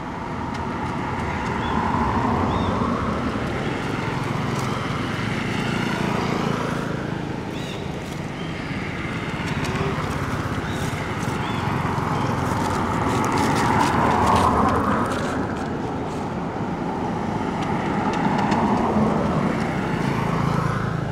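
Road traffic going by: vehicles swelling and fading as they pass, three times over.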